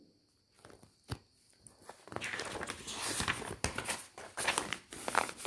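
Pages of a printed textbook being turned by hand: a couple of faint taps, then paper rustling and crinkling for about four seconds.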